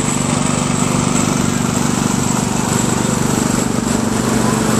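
Small antique farm tractor engines running steadily as the tractors drive slowly past close by, a continuous low engine hum.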